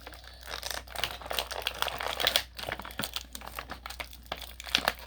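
Plastic packaging crinkling and crackling as spare hands for an action figure are pulled out of their blister tray.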